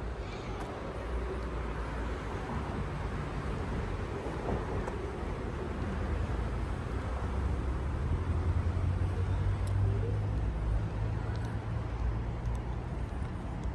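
Car on the road: a steady low rumble of engine and tyres, swelling for a few seconds past the middle.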